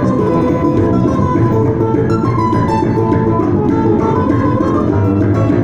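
A contrabass balalaika and a smaller plucked folk string instrument playing a tune together, quick plucked notes over a steady bass line, the bass amplified through a small amplifier.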